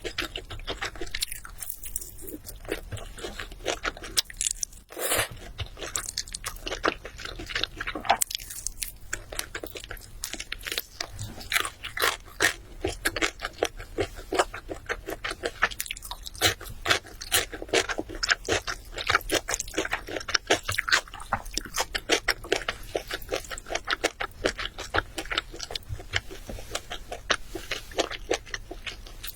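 Close-miked crunching and chewing of crispy Honey Combo fried chicken: a dense run of crackly bites and chews with no let-up.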